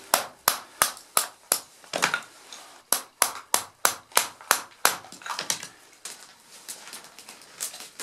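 A knife being batoned through a stick of firewood with a wooden baton: a run of sharp wooden knocks, about three a second, with a short pause about two seconds in. After about five seconds the knocks give way to softer, scattered clicks.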